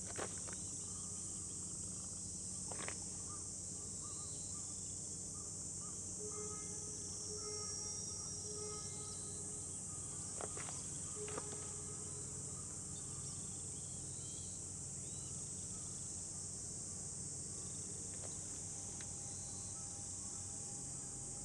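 Steady high-pitched chorus of insects chirring, with a few faint clicks.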